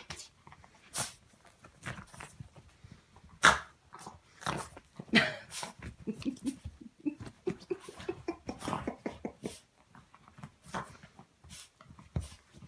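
Yorkshire terrier rolling and rubbing itself on a blanket to dry off: irregular rustles and scuffs of fabric with snuffling breaths, and a run of small pitched vocal noises from the dog about halfway through.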